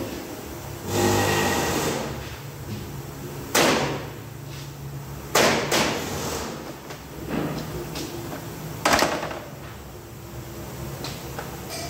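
Metal knocks and clatter of hand tools on the end bell of a large DC motor being worked on: a scraping rattle about a second in, then several sharp knocks spaced a second or two apart.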